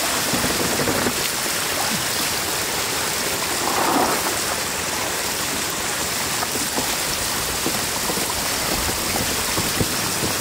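Floodwater pouring in a shallow sheet over the edge of a flooded road, a steady rush of falling and splashing water, with a brief louder swell about four seconds in.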